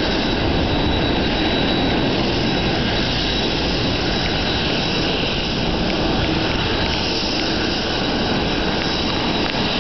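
Airbus A380's Rolls-Royce Trent 900 jet engines running: a steady rush of engine noise with a thin high whine.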